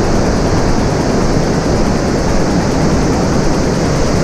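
Fukuroda Falls in heavy flow after a day of heavy rain: a steady, loud rush of falling water, heaviest in the low end.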